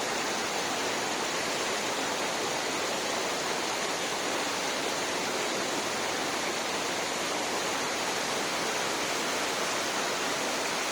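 Steady rush of a mountain waterfall, falling water making an even, unbroken hiss.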